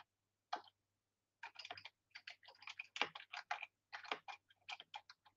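Typing on a computer keyboard: one click, a short pause, then a fast, irregular run of light key clicks.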